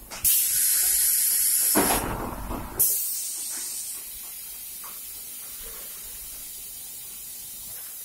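Compressed air hissing through a cold box core shooter machine's pneumatics: a loud blast of air for about a second and a half, a lower rush of air for about a second, then a sharp hiss that fades away. A quieter steady machine hum follows.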